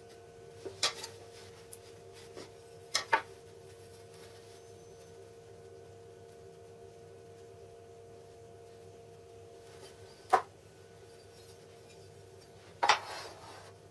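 An aluminium speed square and MDF offcuts being handled on a workbench: a few sharp clicks and knocks, the loudest about ten seconds in, and a clatter with a short scrape near the end, over a steady background hum.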